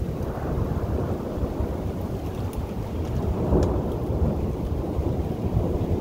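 Rolling thunder rumbling, building and swelling to its loudest about three and a half seconds in, with wind buffeting the microphone.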